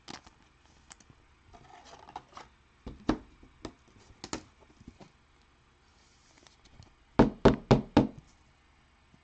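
Trading cards and packs handled on a table: scattered light taps and a soft rustle, then a quick run of about five sharp knocks near the end.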